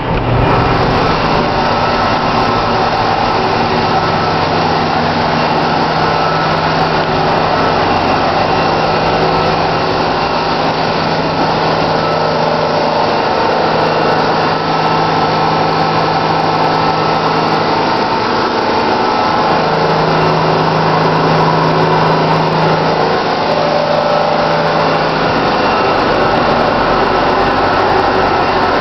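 Loud, steady drone of a container ship's machinery: a continuous rushing noise with several steady hums, one low hum growing stronger for a few seconds about two thirds of the way through.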